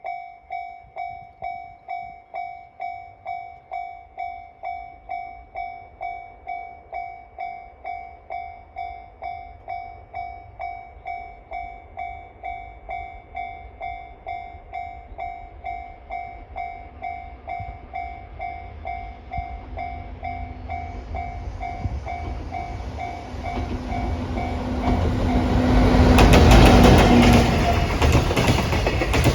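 Japanese railway crossing warning bell ringing, an evenly repeated electronic "kan-kan" tone at about one and a half strikes a second. About two-thirds of the way in, the rumble of an approaching train grows, and the JNR Class EF64 electric locomotive passes with loud wheel clatter near the end, drowning out the bell.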